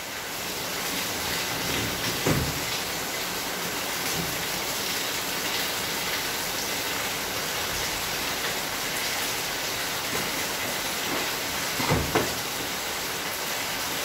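Steady hiss of background noise, with two dull knocks about two seconds in and again near the end as the washing machine's plastic top panel is handled.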